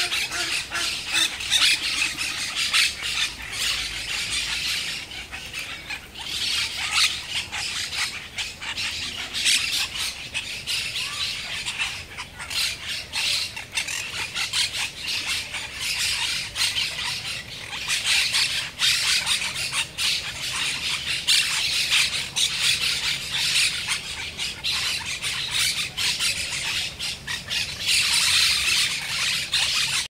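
A flock of green parakeets squawking, many harsh calls overlapping without a break and swelling and easing every few seconds.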